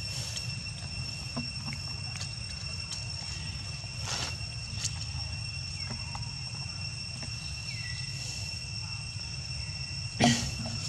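Steady high-pitched insect drone in the woods, with a few faint clicks. A short, sharp sound about ten seconds in is the loudest moment.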